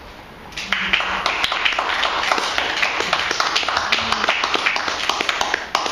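Small audience clapping, starting about half a second in and stopping just before the end.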